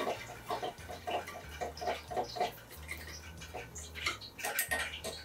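Dashi-based sauce heating in a saucepan on the stove, starting to bubble: a run of short bubbling blips in the first half, then a few light clicks.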